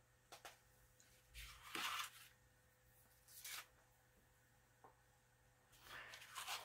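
Faint, brief rustles of a paper page being handled and smoothed on a cutting mat: a soft rustle about a second and a half in, another shorter one about three and a half seconds in, and a few light clicks, with near silence between.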